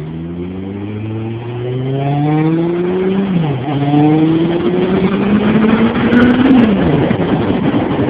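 Suzuki Bandit 1200S inline-four engine accelerating hard, its pitch climbing, dropping sharply at a gear change about three seconds in, climbing again and dropping once more near seven seconds. Wind noise builds as the speed rises.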